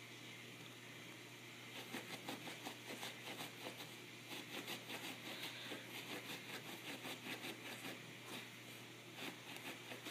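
A small dog nosing and scratching at a low stand on carpet: a quick, irregular run of soft scratchy ticks starting about two seconds in, over a steady low hum.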